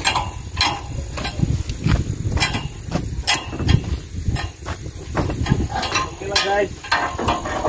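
Irregular knocks and clatter of oil palm fruit bunches being pitched from a pickup bed into a steel dump truck bed with a long pole, over a low rumble.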